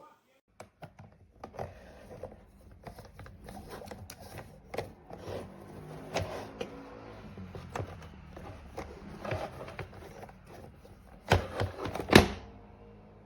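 Scattered clicks and knocks of a plastic corded stick vacuum being handled, irregular and unrhythmic, with two sharper, louder clicks near the end. The motor is not running.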